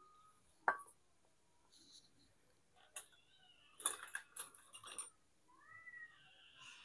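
A cat meowing, with a pair of short rising-and-falling meows near the end. There are sharp clicks and a spell of clatter around the middle.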